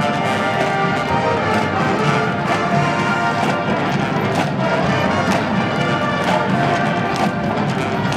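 College marching band playing: brass over a steady beat of drum strikes.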